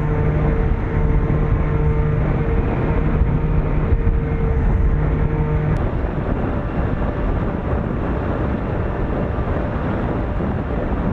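Steady low outdoor noise with a faint two-pitch hum that stops about six seconds in.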